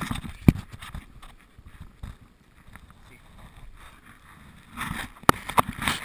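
Scuffing and rustling of a person crawling through a narrow rock passage, with sharp knocks of gear or body against the rock about half a second in and twice near the end.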